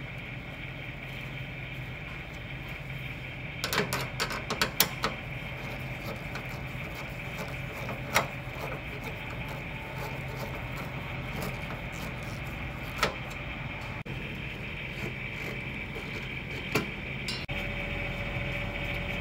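Steady machine hum, with a quick run of sharp clicks about four seconds in and single knocks now and then after.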